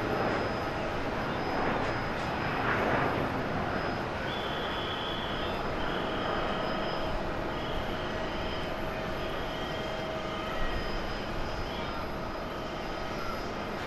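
Japan Airlines Airbus A350-900's twin Rolls-Royce Trent XWB turbofans at takeoff power as the jet rotates and climbs away: a steady rushing jet noise with a faint steady whine in it. A faint high-pitched tone comes and goes from about four seconds in.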